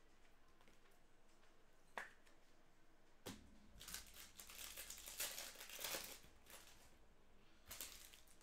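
A trading-card pack wrapper being torn open and crinkled: a tick about two seconds in, a sharp rip a second later, then about three seconds of crackling, and a shorter crinkle near the end.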